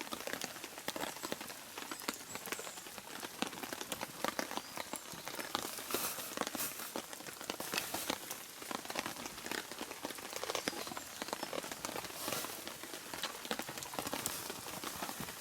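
Rain falling steadily, many drops pattering irregularly as sharp taps on surfaces close by.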